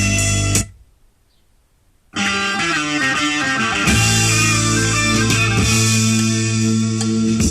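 Recorded guitar-based music playing back from an MP3 player. It cuts out about half a second in, and after a short silence another track with guitar and a steady bass line starts about two seconds in.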